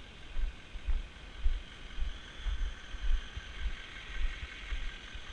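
Footsteps of a person walking across a gravel lot, heard as low thuds about twice a second through a body-worn camera, over steady vehicle noise.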